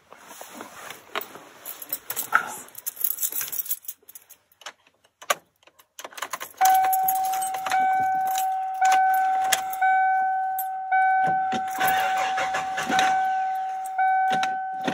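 Keys jangling and rustling in the cab of a 1996 Ford F-150. About halfway through, the ignition is switched on and the dashboard warning chime starts dinging steadily about once a second.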